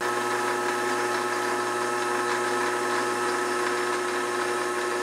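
Benchtop lathe's brush motor running steadily at speed, a constant whine made of several steady tones over a hiss.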